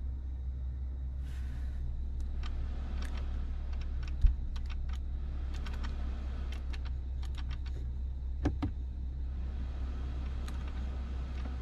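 Clicking of a car's rotary climate-control dials being turned and pressed by hand: irregular runs of short sharp clicks, with a single low thump about four seconds in, over a steady low hum.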